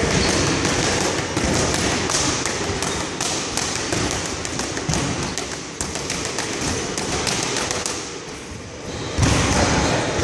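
Boxing gloves striking focus mitts in quick combinations: a rapid run of sharp slaps and thuds, with a short pause near the end before the punches resume.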